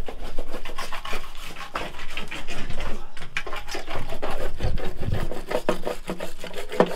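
Hand wire brush scrubbing grime off the ribbed steel floor of a Ford Transit van's cargo area, in quick back-and-forth strokes.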